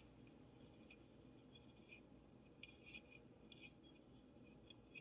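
Near silence, with faint scattered clicks and light scratching from a pistol magazine with a freshly fitted extension being turned over and fingered in the hands.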